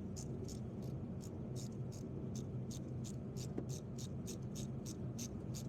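Steady high-pitched insect chirping, about four chirps a second, over a low steady hum.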